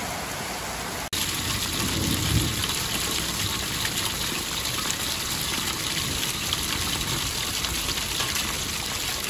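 Heavy rain falling on paving. About a second in, after a short break, this gives way to the louder, steady gush of a rainwater downpipe pouring a strong stream onto wet paving, with rain all around.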